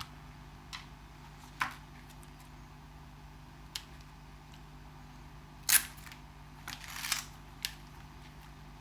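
Scattered sharp clicks and clacks of small plastic RC car parts being handled during a teardown, the loudest about two thirds of the way through, then a short cluster of clicks.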